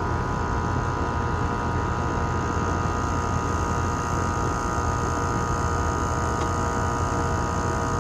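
Outdoor air conditioner condenser unit running: a steady compressor hum with fan noise and several steady tones over it.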